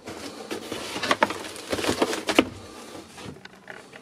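A few knocks and rustles from handling and moving about, loudest about a second and two seconds in.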